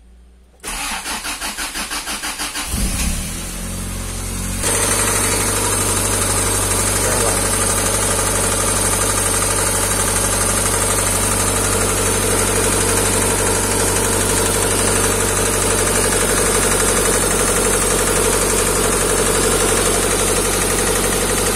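Honda car engine, run by a Speeduino ECU, cranked by the starter in an even pulsing rhythm for about two seconds, catching and picking up about three seconds in, then idling steadily, its sound louder from about four and a half seconds in.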